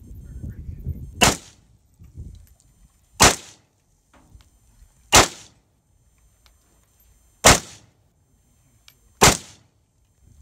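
Yugoslavian M70AB2 underfolder AK-47 in 7.62×39 mm fired in slow single shots: five shots about two seconds apart, each a short sharp report with a brief ringing tail.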